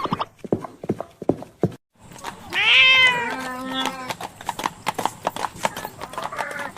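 Quick, irregular taps and clicks, with one animal call about halfway through that falls in pitch.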